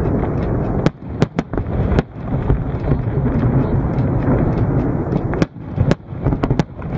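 Aerial fireworks bursting in a run of sharp bangs, a cluster about a second in and another from about five seconds on to the end, over a constant noisy background.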